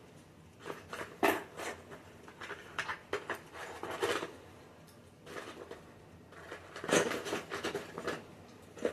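Small hard plastic toy pieces being handled, clicking and clattering against each other in short, irregular bursts.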